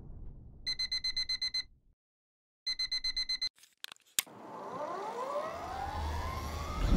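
Phone alarm beeping rapidly in two bursts of about a second each, then a couple of sharp clicks about four seconds in. After the clicks comes the rising whine of a Victory Empulse TT electric motorcycle's motor as it accelerates away.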